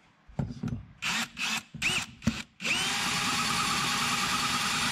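DeWalt cordless drill spinning a valve seat cutter in a motorcycle cylinder head's exhaust valve seat, cutting the 45-degree seat: several short trigger blips, then a steady run from about two and a half seconds in.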